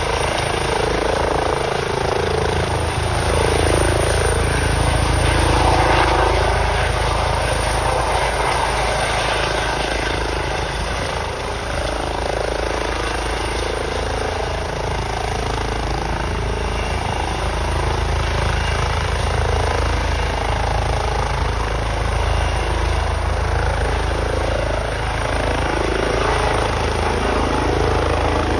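Air ambulance helicopter's rotor and turbine engines running loud and steady as it hovers low over the ground and lifts higher.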